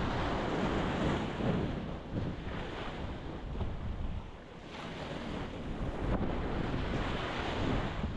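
Ocean surf breaking against a rocky shore, a steady wash of water that swells and ebbs, easing briefly about four and a half seconds in before the next wave surges.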